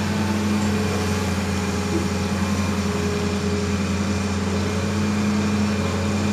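Hitachi Zaxis 200 crawler excavator's diesel engine running steadily while the boom and arm move the bucket.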